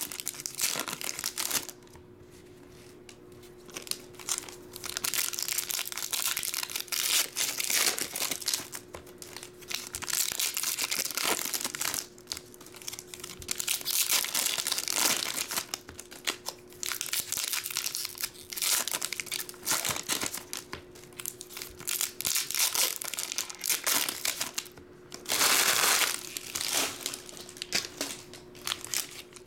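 Foil Pokémon booster-pack wrappers crinkling and tearing as packs are ripped open by hand, in repeated bursts with short pauses between, over a faint steady hum.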